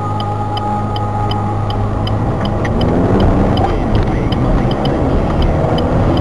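Car interior road and engine noise with a regular ticking about three times a second, typical of a turn-signal indicator. From about two seconds in, the engine note rises as the car accelerates.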